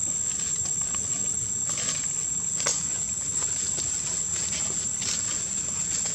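Insects droning with a steady high-pitched whine, with a few faint short clicks.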